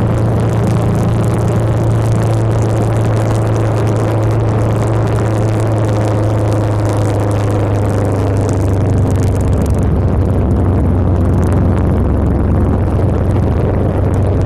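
Motorcycle engine running at a steady cruise, with wind noise over the bike. The engine note drops a little about nine seconds in as the bike slows.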